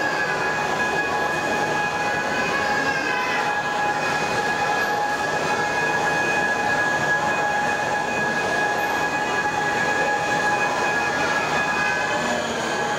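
Overhead crane travelling with a Shinkansen car body slung beneath it, giving a steady whine that holds one pitch throughout, over the noise of a crowd.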